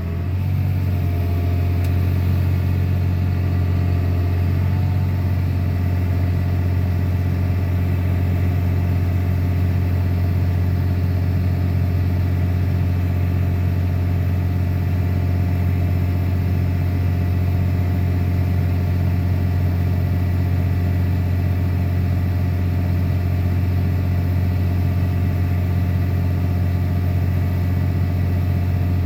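8400 tractor's diesel engine running steadily under load with the grain cart, a constant low drone with a faint steady whine above it.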